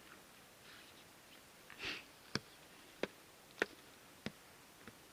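A single short sniff, then four sharp clicks at an even pace, about two-thirds of a second apart.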